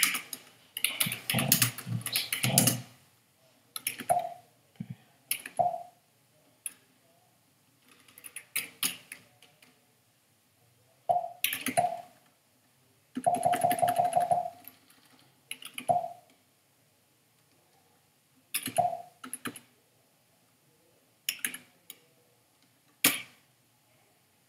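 Typing on a computer keyboard in short bursts of key clicks, with pauses of a second or more between bursts and a longer run of typing about halfway through.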